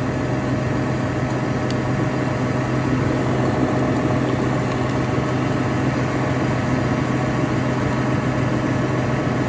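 Farm machine's engine idling steadily, a constant low hum that neither rises nor falls.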